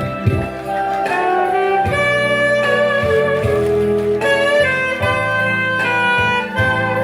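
Instrumental music, the lead-in to a song: a held melody line with vibrato over a bass line and a steady beat.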